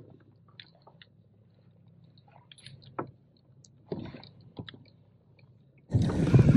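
Mostly quiet, with a faint low hum and scattered small clicks and taps. About six seconds in, a loud rushing noise of wind and water on the microphone starts suddenly.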